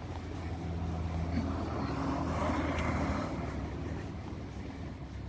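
A motor vehicle passing by on the street, its engine hum and tyre noise growing louder to a peak about halfway through and then fading away.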